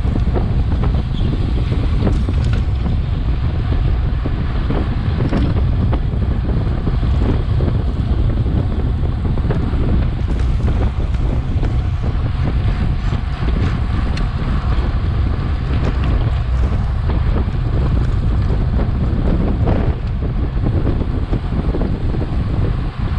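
Wind rushing over a bike-mounted action camera's microphone at racing speed: a steady, loud, low rumble.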